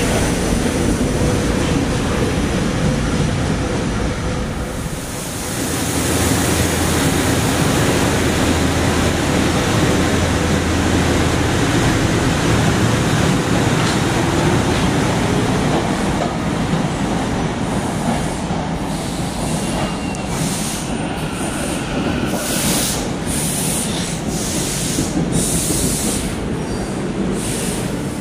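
SEPTA Silverliner electric trains moving through an underground station: a steady rumble of wheels on rail. There is a short dip about five seconds in, and in the last ten seconds a run of evenly spaced high hissing bursts, about one a second.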